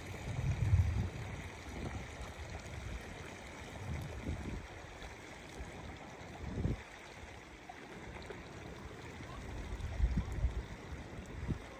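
Shallow runoff from Pinwheel Geyser flowing over a gravel channel: a steady sound of running water. Low rumbles come in at the start, at about four and seven seconds, and again around ten seconds.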